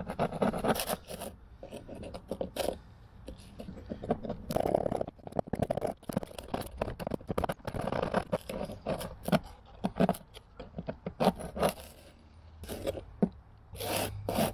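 Steel scraper blade scraping white salt-corrosion buildup off a small metal part of an outboard's water pump, in many short, irregular strokes.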